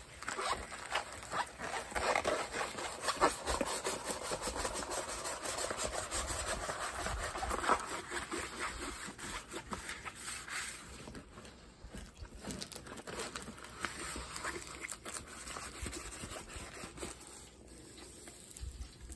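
Rolled diamond-painting canvas with its plastic cover film rustling and crinkling as it is rolled back and forth against its curl on a wooden tabletop. Busier in the first half, then softer and sparser.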